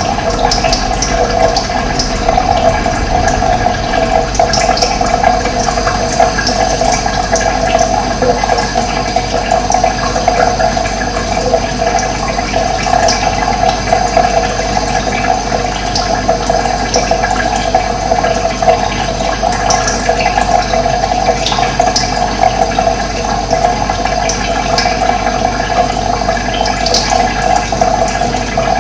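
Running water flowing steadily, with short high bird chirps now and then.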